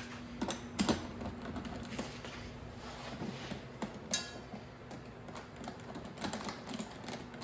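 Light, irregular metallic clicks and ticks of a small 1/4-inch ratchet and bolt being turned, as a bolt is started into its threaded hole. A few sharper clicks come in the first second and about four seconds in, over a faint steady hum.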